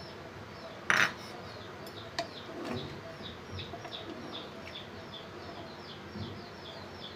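A ladle knocks sharply against a cooking pot about a second in, with a lighter clink a little after two seconds, while a bird chirps over and over, about three or four short falling chirps a second.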